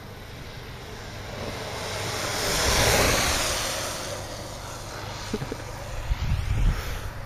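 Downhill longboard passing close at speed, its urethane wheels rolling on asphalt: a rush of wheel noise that rises, peaks about three seconds in and fades away.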